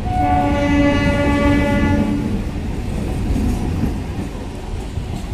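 MEMU electric train's horn sounding one steady blast about two seconds long, over the continuous low rumble of the train.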